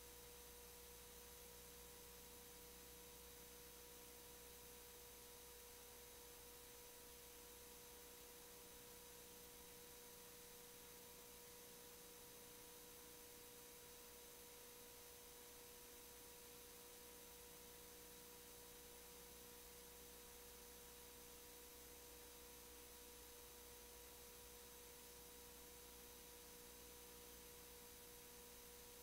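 Near silence: faint steady hiss with a constant faint hum tone, the noise of an idle audio feed.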